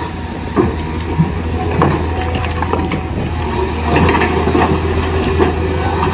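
Small electric motors of a toy RC excavator running with a steady hum, with scattered clicks and knocks from the machine at work.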